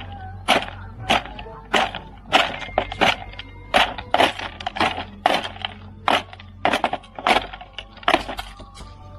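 Ostriches pecking hard at feed: a run of sharp knocks and cracks at slightly uneven spacing, about two a second.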